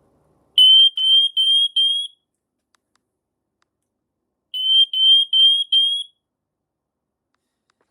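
Carbon monoxide alarm sounding during a button test: two sets of four high-pitched beeps, about four seconds apart. The four-beep pattern is the standard carbon monoxide warning signal.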